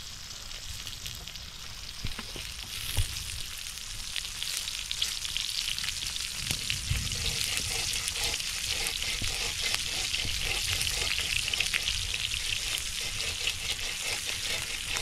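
Bacon frying over a campfire, sizzling and spitting, growing louder from about the middle on. The fat is running very hot, hot enough to start a grease fire.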